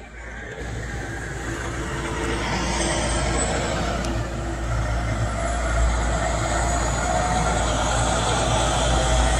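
A motor vehicle running, with a deep rumble, steadily getting louder.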